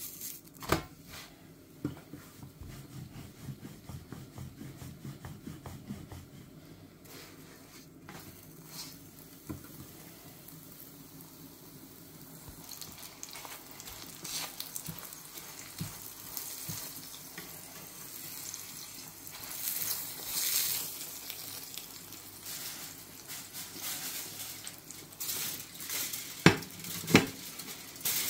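A paratha frying in an oiled pan, sizzling softly, with scrapes and knocks of a spatula against the pan. A brief run of quick light knocks comes a couple of seconds in, and a few sharp clicks come near the end.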